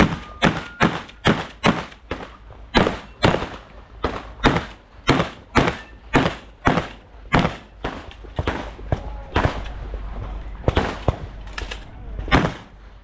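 Shotgun fired in rapid strings on an IPSC shotgun stage, about two shots a second, pausing for a couple of seconds in the last third before a few more shots; some fainter shots sound in between.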